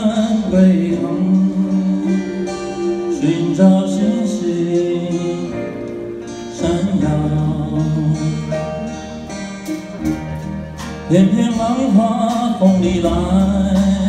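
A live band performs a Taiwanese folk ballad: a man sings while strumming an acoustic guitar, backed by keyboard and a drum kit. There is a quick run of sharp drum-kit strokes about ten seconds in.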